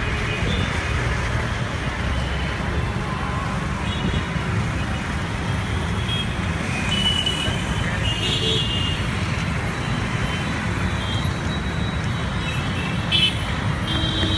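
Busy city road traffic at close range: a steady rumble of car, bus and motorcycle engines and tyres, with several short horn toots scattered through it.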